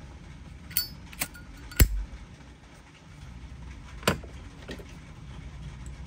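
Zippo lighter handled, its hinged metal lid clicking open and snapping shut: about five sharp metallic clicks, one with a brief ringing ping. The loudest comes a little under two seconds in.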